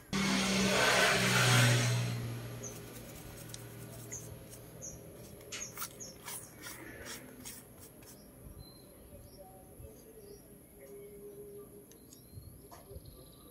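Thinner poured from a glass bottle onto a circuit board, a loud splashing rush for about two seconds, then a toothbrush scrubbing the solder side of the board in a run of short strokes. Small birds chirp in the background.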